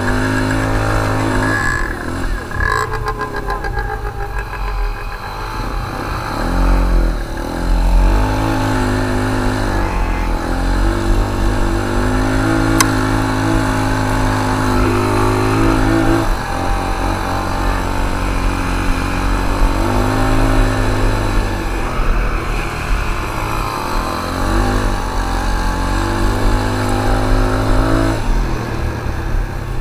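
ATV engine heard from a camera mounted on its rack, revving up and easing off over and over as the quad rides.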